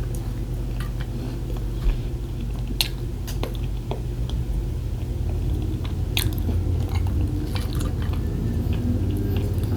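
A person chewing and biting into syrup-soaked pancake, with scattered small clicks of mouth and utensil, over a steady low hum.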